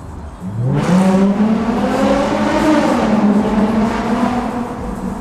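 Lexus IS250's V6 with an aftermarket exhaust at full-throttle acceleration in a tunnel, heard from inside the cabin with the windows down. The engine note climbs sharply about half a second in, then holds loud and steady before easing slightly near the end.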